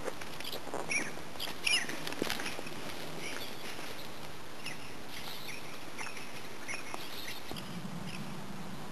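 Birds calling in short, sharp chirps, a cluster in the first couple of seconds and more around the middle, over the crunch of footsteps on gravel.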